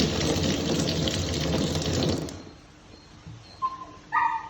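Kitchen tap water running into the sink and stopping about two seconds in. A brief high-pitched sound follows near the end.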